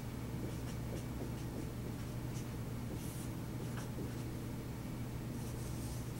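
Dry-erase marker writing on a whiteboard in short strokes, ending with a longer sweep as the finished equation is circled, over a steady low hum.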